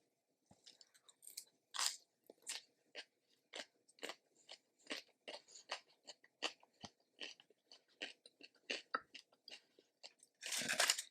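Close-miked chewing of crisp food: short crunches roughly twice a second, irregular. Just before the end comes a louder, longer rustling noise.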